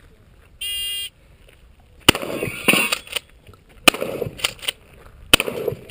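A shot timer's electronic start beep sounds once, about half a second long. About a second and a half later, a shotgun begins firing: three loud blasts roughly a second and a half apart, with weaker reports between them, and each blast leaves a ringing tail.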